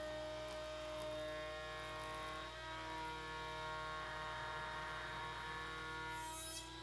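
Router spinning a bearing-guided flush-trim pattern bit in a router table, a steady whine, while a hard-maple workpiece is fed along the template.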